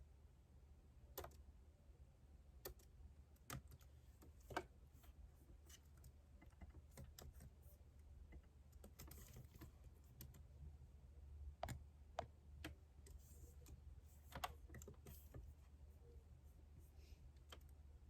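Quiet typing on a computer keyboard: scattered, irregular keystrokes over a soft, steady low hum.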